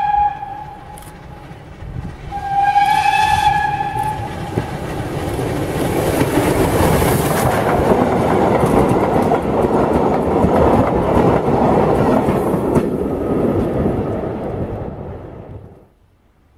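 Steam whistle of the Ol49 steam locomotive, one blast ending just as it begins and a second of about two seconds about two seconds in, then the locomotive and its vintage coaches running past close by, a loud rumble and rush of wheels on rails that swells and then fades.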